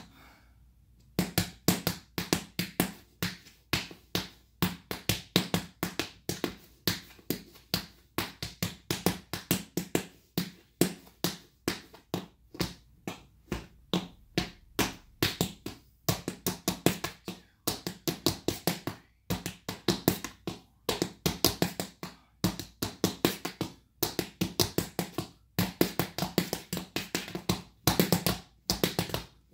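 Black tap shoes striking a small wooden tap board in a tap-dance routine: quick, sharp metal taps in rhythmic phrases, starting about a second in and going on without a break.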